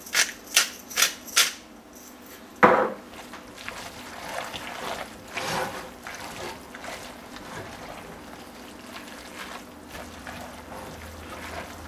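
A pepper mill being twisted, about four quick grinding cracks in the first second and a half, then a sharp knock. After that, a utensil stirring creamy fettuccine in a stainless steel pot, with soft scraping against the metal and wet squelching of the sauce.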